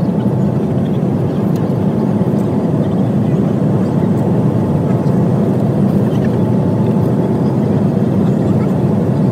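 Steady rumbling noise of a moving vehicle heard from inside the cabin.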